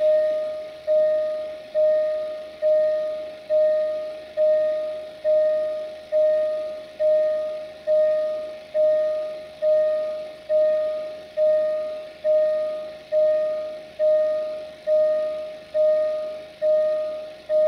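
Railway level crossing warning bell ringing as a train approaches, a single bell tone struck steadily a little more than once a second, each stroke fading before the next.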